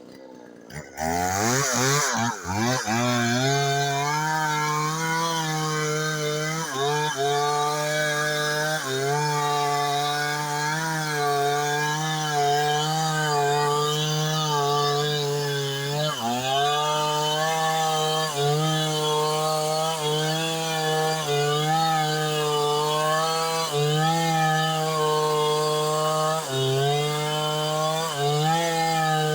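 Chainsaw revving up and down about a second in, then running at high speed while cutting into the tree, its pitch dipping briefly every couple of seconds as the chain takes the wood.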